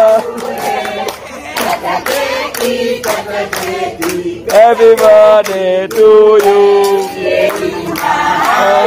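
A group of people singing together, with hand clapping in time, about two to three claps a second.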